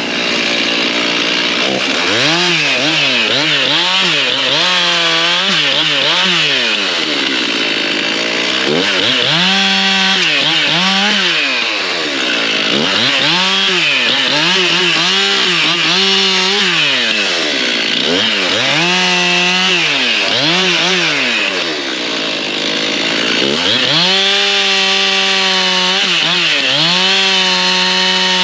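Stihl MS 391 two-stroke chainsaw delimbing felled hardwood: the engine revs up to full speed and drops back toward idle again and again as each limb is cut, with one longer held cut near the end.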